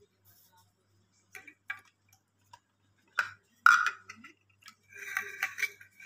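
The plastic parts of a handheld car vacuum cleaner being handled: the corrugated extension hose and attachments knock and click. A few light clicks come early, the loudest knocks a little past midway, and a burst of rattling comes near the end.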